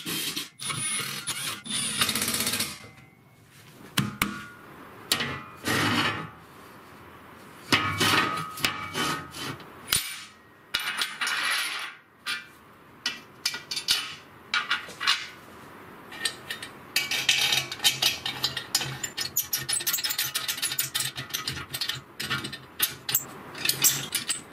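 Steel parts and hardware being handled on a steel tabletop: a string of short metallic clicks, knocks and clinks, with brief scraping as a square steel tube is slid across the plate.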